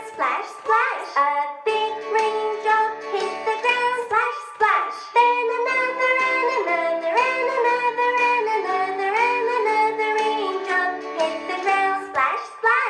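Children's song: singing over an instrumental accompaniment.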